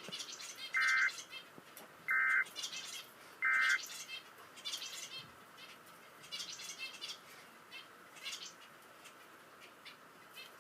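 Three short bursts of Emergency Alert System data tones, the end-of-message code that closes an alert. Each burst lasts about half a second and they come about 1.3 s apart. Birds chirp in the background throughout.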